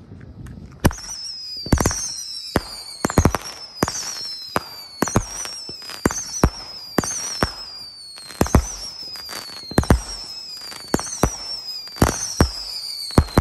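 A 16-shot 200 g consumer firework cake (Magnus Fireworks 'Unleashed') firing, starting about a second in. It fires a string of sharp shots at roughly one a second, each followed by a high whistle that falls steadily in pitch.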